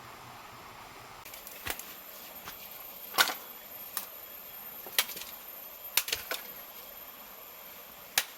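A series of sharp, short knocks or taps at irregular intervals, about one a second and a few in quick succession near six seconds in, over a steady hiss.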